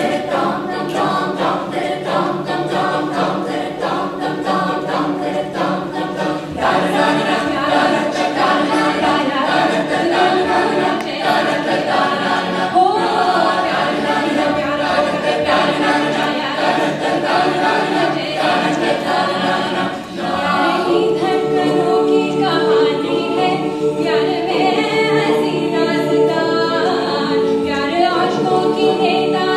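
A mixed a cappella group singing, a woman's voice leading over the rest of the group's backing harmonies. The backing grows fuller and louder about six seconds in.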